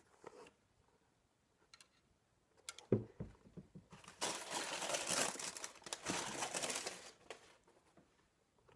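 Packaging paper crinkling and rustling as it is handled, loudest for about three seconds in the middle, with a single knock just before it starts.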